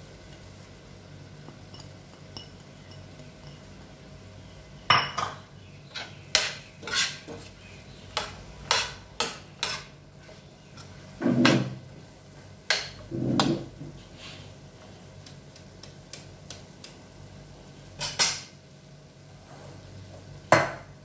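A metal spoon stirring vegetables in a stainless steel frying pan, clinking against the pan in a quick run of sharp knocks, with two duller knocks in the middle and a few more clinks near the end.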